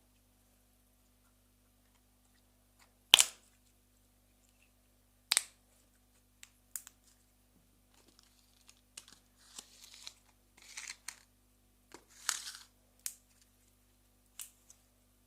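Slime being pressed and pulled by hand, giving sharp wet pops and clicks one after another, with a few seconds of softer crackling in the middle.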